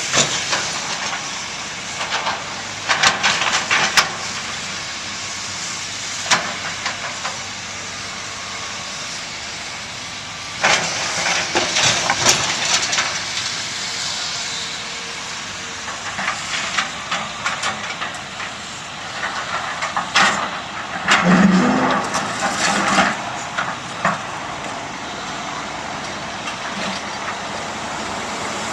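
Heavy equipment diesel engines running steadily while concrete chunks clatter and crash into a steel roll-off container in several bursts, the loudest about two-thirds of the way through.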